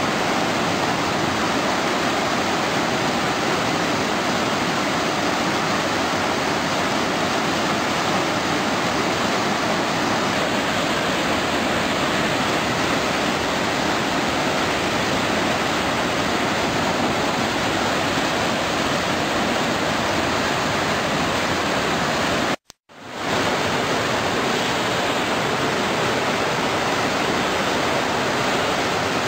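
Steady rush of a river in flood, fast-flowing floodwater. It cuts out completely for a moment about three-quarters of the way through, then carries on.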